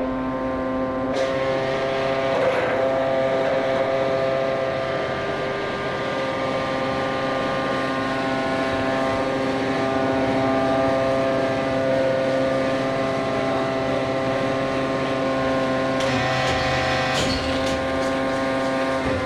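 A loud motor-like drone held at one steady pitch, with a few light clicks about three-quarters of the way through.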